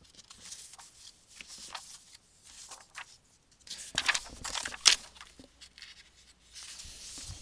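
Sheets of paper rustling and sliding as they are handled on a desk, in several short bursts, the loudest about four to five seconds in.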